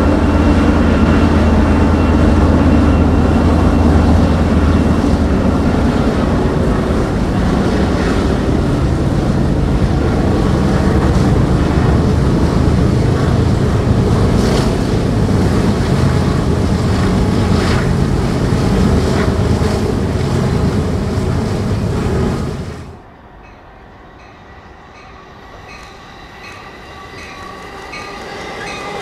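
Several GE diesel locomotives hauling an intermodal freight train pass close by with a loud, steady low engine drone, followed by wheel clicks as the container cars roll past. About 23 seconds in the sound cuts abruptly to a much quieter passenger train approaching, growing louder near the end.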